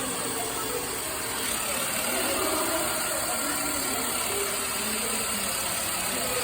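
Electric drill running steadily as it bores a hole into a wooden log, pushed hard into the wood.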